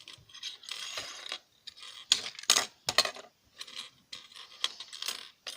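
Small plastic and metal parts of a dismantled alarm clock being handled and set down, making a string of irregular clicks and light clatters with a brief scrape about a second in.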